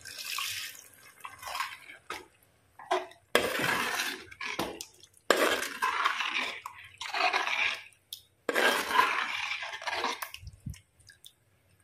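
Water poured into a thick chicken curry in an earthenware clay pot, then a metal spoon stirring the gravy, sloshing and scraping against the pot. It comes in several separate stretches, some starting abruptly.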